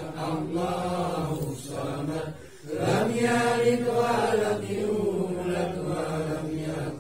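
Men's voices chanting an Islamic tahlil recitation, drawn-out and melodic. It breaks off briefly a little over two seconds in, then resumes louder on long held notes.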